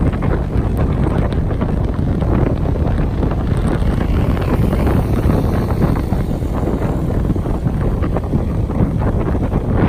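Wind buffeting the microphone on a moving vehicle, a steady low rumble with road noise underneath.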